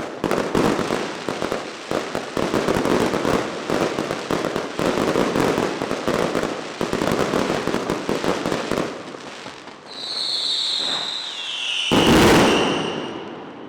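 Aerial fireworks: a dense barrage of rapid crackling bangs for about nine seconds, then a high whistle that falls slightly in pitch, and one loud boom near the end.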